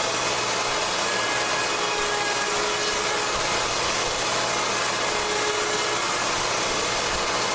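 Handheld router running steadily and cutting a 12-to-1 scarf slope into white ash boards clamped in a scarfing jig.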